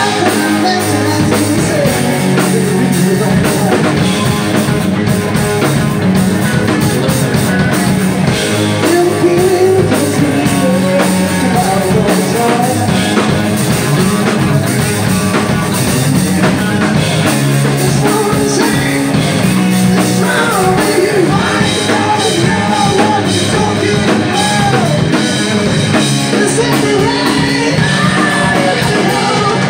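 Rock band playing live: drum kit, electric guitar and a lead vocal singing over them, loud and dense, heard from among the audience.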